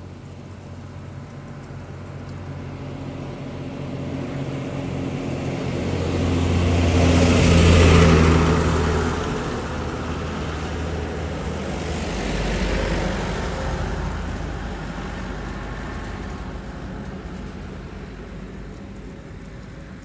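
Road traffic passing: engine and tyre noise swells to a loud peak about eight seconds in and fades, with a smaller second vehicle passing around twelve to thirteen seconds.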